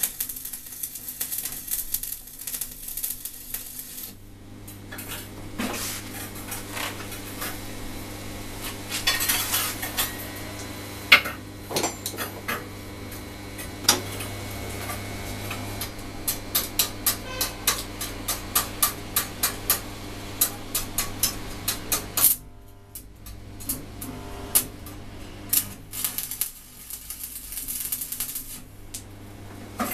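Stick arc welding on a steel rod frame: the arc crackles and hisses in bursts, at the start, around ten seconds in and again near the end. Between welds come sharp metallic taps and clinks, about two a second for several seconds after the middle, over a steady low hum.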